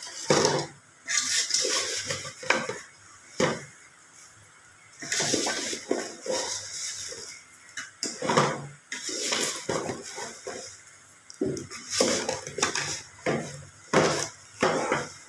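A spatula scraping and turning fine vermicelli in a metal pot as it is dry-roasted: irregular bursts of scraping and rustling with short pauses between strokes, and now and then a sharp click of the spatula against the pot.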